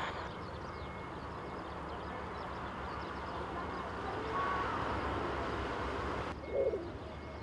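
Steady low rumble of distant jet airliner engines on an airfield, with a few faint bird calls.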